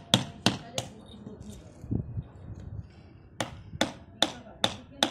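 Hammer blows on a wood chisel, sharp and ringing: three quick strikes, a pause of about two and a half seconds, then a steady run of five strikes, a little over two a second.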